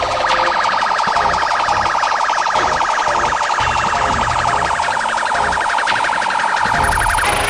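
Police vehicle siren sounding in a fast pulsing warble, cutting off abruptly near the end.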